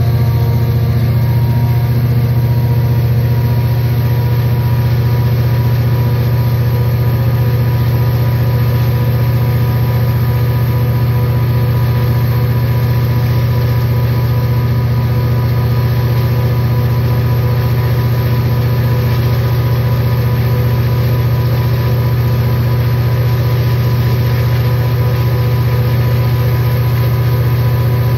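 EMD SD40-2 locomotive's 16-cylinder 645E3 two-stroke diesel prime mover running steadily at full throttle (run 8) under load during a load test, its power dumped into the dynamic brake grids. The sound is a steady, unchanging drone.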